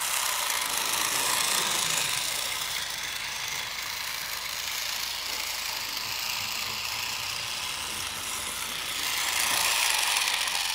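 Battery-powered toy train running around a small circular track, its little electric motor and gears whirring steadily, a bit louder near the end as it is handled.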